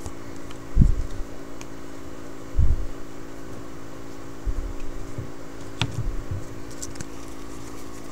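Trading cards and packs being handled on a tabletop: a few dull thumps and a sharp click near the end, over a steady low hum.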